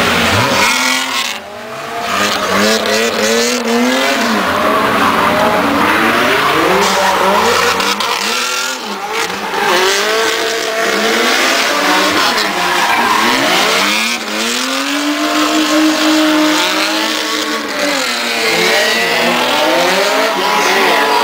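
Nissan 240SX drift car sliding sideways under power, its tyres squealing continuously. The engine revs up and down, with a few brief dips in its note.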